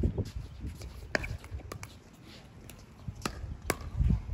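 A few sharp, separate pops of a plastic pickleball off a paddle and the hard court, with a gust of wind buffeting the microphone near the end.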